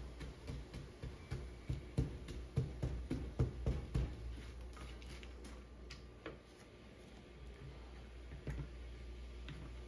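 Cookware being worked while cooking: a run of irregular knocks and clicks over the first half, then only a few scattered clicks.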